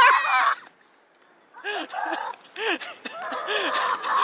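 Girls laughing and giggling in quick, high-pitched rising-and-falling laughs. A short gap of near silence falls about a second in.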